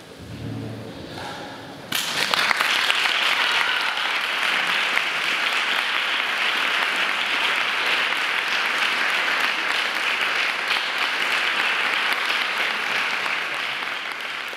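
Audience applauding: dense clapping breaks out suddenly about two seconds in and carries on steadily, fading only at the very end.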